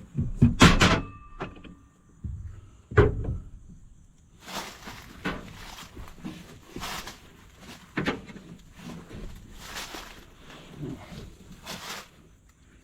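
Metal clanks, one with a short ring, then a run of about a dozen rasping metal-on-metal scrapes: a nut being worked onto the freshly cleaned, still-tight threads of a tractor's belt pulley shaft.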